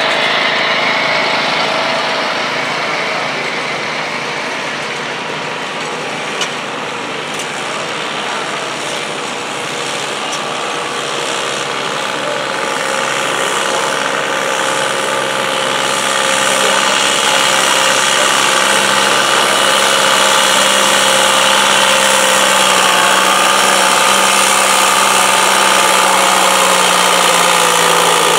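Diesel garden tractor engine working steadily under load as it drags a weight sled over dirt. It gets louder in the second half as it draws closer.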